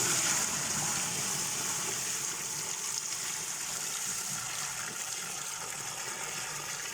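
Water gushing steadily into the tub of a top-load washing machine as it is filled, growing gradually a little quieter.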